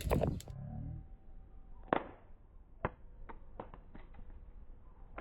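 A flip phone dropped on its side from about four feet onto the ground: a hard impact at the start, then a scatter of sharp knocks and lighter clicks as it clatters and settles.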